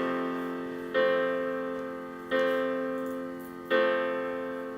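Piano chords from a karaoke backing track: a new chord is struck about every second and a half, and each one rings and fades away.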